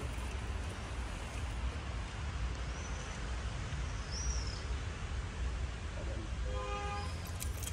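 Outdoor ambience: a steady low rumble and hiss, with two short high bird chirps in the middle and a brief pitched call near the end.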